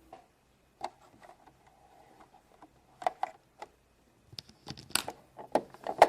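Plastic toy kitchen pieces being handled: scattered light clicks and taps, a few early on and more frequent near the end.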